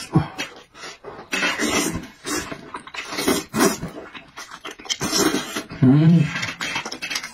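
A man eating sheep-head meat dipped in chili sauce: several loud slurps and hard breaths puffed out through pursed lips against the spice heat. A short voiced grunt comes about six seconds in.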